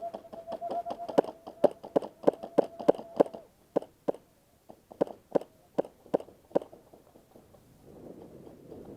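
A rapid string of sharp airsoft gun shots, fired one at a time at an uneven pace, about twenty in six seconds. A steady high tone runs under the first three seconds or so.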